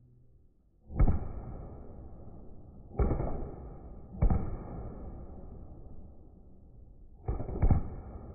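Aerial fireworks bursting: five sharp bangs, about a second in, near three seconds, just after four seconds, and a close pair near the end, each followed by a fading tail.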